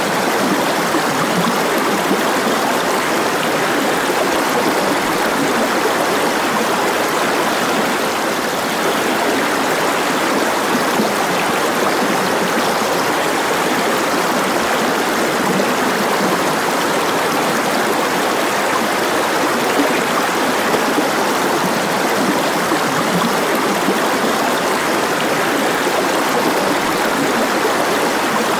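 Steady sound of running water, an even flow with no breaks or changes.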